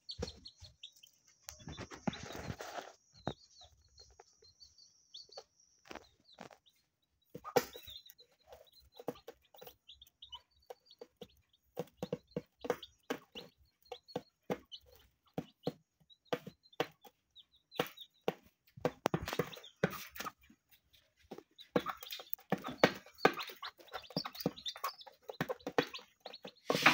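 A naked-neck mother hen clucking in short repeated notes and tapping her beak on a plastic lid as she picks at rice grains, calling her chicks to food, while the chicks peep thinly and high. The clucks and taps come thickest in the last few seconds.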